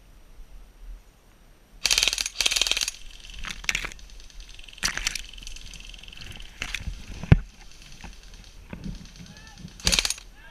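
Airsoft guns firing short rapid bursts, the first about two seconds in, several more through the middle, and a last one near the end. A single sharp knock a little after the middle is the loudest sound.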